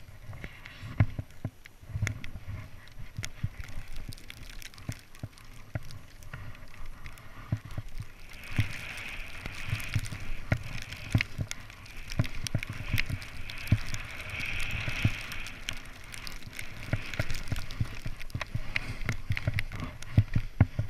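Snowboard riding through deep powder snow: a rushing hiss of the board through the snow, stronger from about eight seconds in, with irregular low thumps and knocks all through.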